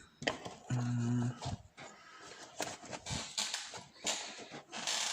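Lock picks and small metal tools being handled and set down: a run of irregular light clicks and knocks, with a brief low hum just under a second in.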